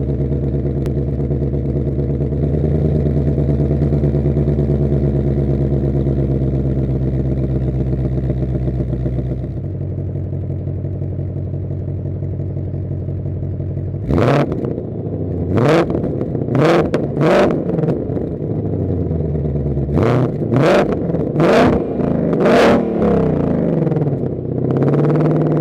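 A 2021 Ford Mustang Shelby GT500's supercharged 5.2-litre V8, on its stock exhaust, idles fast and settles to a lower idle about nine seconds in. Then it is revved in eight quick blips, two bursts of four, before it drops back to idle.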